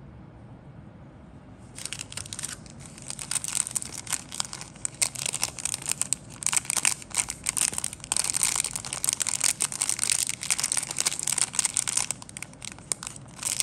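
Clear plastic parts bag crinkling as it is handled, a dense run of quick crackles starting about two seconds in.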